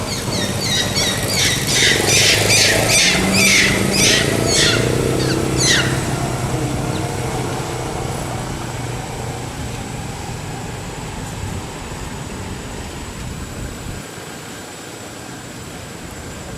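High-pitched squealing calls, repeated about three times a second for the first six seconds, over the low hum of a motor vehicle engine that fades away.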